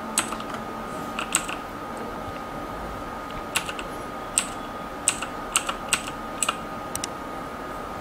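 Zebronics Max Pro mechanical keyboard with Outemu Blue clicky switches: single keys pressed one at a time, about a dozen sharp clicks at irregular intervals, some in quick pairs.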